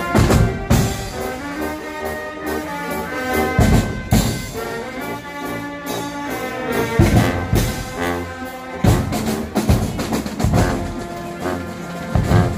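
A Guggenmusik carnival band playing loud brass: trumpets, trombones and sousaphone holding chords over bass drums, with heavy drum hits every few seconds.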